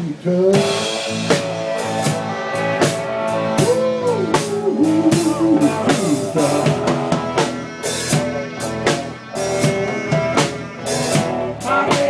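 Live band's instrumental break: a clarinet plays a bending melody over electric guitar chords and a drum kit keeping a steady beat.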